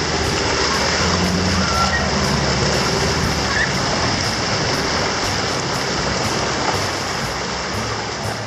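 Water surging and splashing around a Ford Ranger ute as it wades bonnet-deep through a creek crossing, pushing a bow wave, with its engine running underneath. The sound eases off a little near the end.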